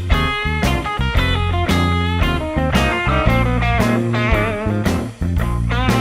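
Background music: a bluesy rock track with electric guitar, bending notes over a steady beat and bass.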